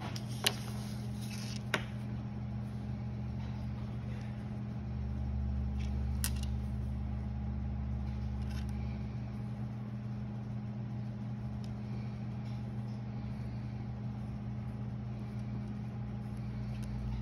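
Steady low mechanical hum, like a ventilation fan, with a few sharp clicks, the two loudest in the first two seconds.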